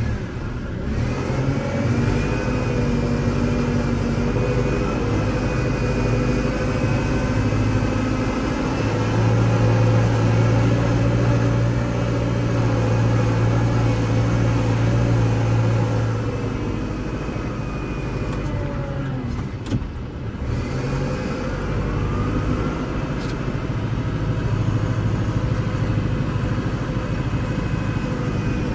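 Kubota L6060 tractor's diesel engine running, louder for several seconds in the middle, easing off briefly about two-thirds through and then rising in pitch again.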